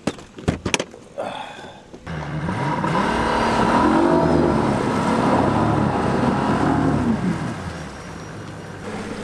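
A boat's outboard motor comes up to speed about two seconds in, its pitch rising, holding and then falling back near the end. A few sharp knocks in the first second.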